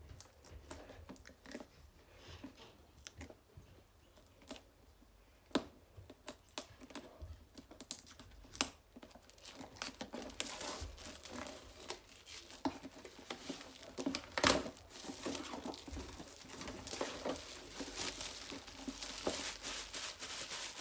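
Packaging of a card game box being unwrapped by hand: scattered clicks and taps at first, then steadier crinkling and tearing from about halfway through.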